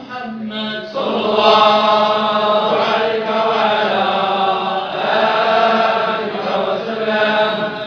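A group of men chanting together in unison: Sufi dhikr of the Tijani order, over a steady low held note. About a second in the chant swells fuller and louder, and it eases back near the end.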